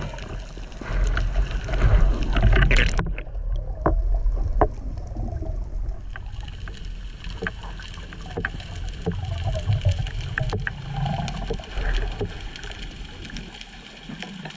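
Underwater sound from a spearfisher's camera as he swims: water rushing over the camera with a low rumble, loudest in the first three seconds. After that it is quieter, with scattered sharp clicks.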